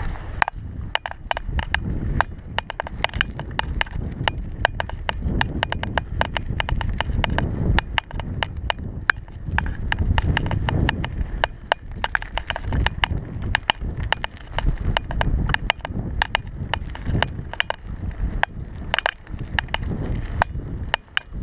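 Mountain bike riding down a rough dirt trail: a constant rattle of sharp clicks and knocks from the bike over the bumps, over an uneven low rumble of tyres and wind.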